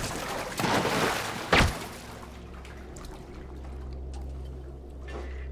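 A suppressed pistol shot, a sharp crack about a second and a half in, after a noisy rush of about half a second. A low steady drone follows.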